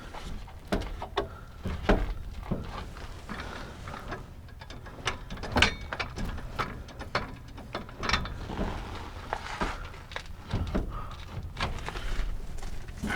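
Irregular clicks, clanks and knocks of metal parts and hand tools being handled while a fuel tank is fitted under a pickup truck.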